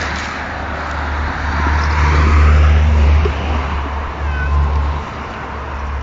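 Domestic cat purring close by: a steady low rumble that swells and eases in breaths.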